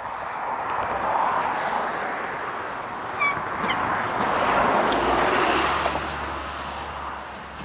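Cars and trucks passing close by on a busy road. Their tyre and engine noise swells and fades as each one goes past, with the loudest pass near the middle. There is a brief high squeak about three seconds in.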